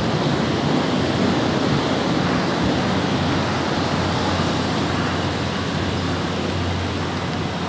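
Steady rushing noise with no clear pitch, like moving air.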